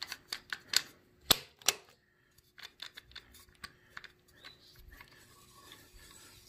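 Sharp clicks and light knocks from the home-made fine-feed handwheel and quill mechanism of a mill-drill as it is handled and turned by hand. A quick run of clicks comes in the first two seconds, then fainter, sparser ones.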